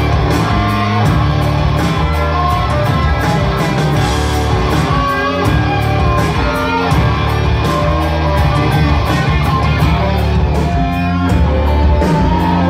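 Live rock band playing loud, with distorted electric guitars over bass and drums, heard from the audience in a concert hall.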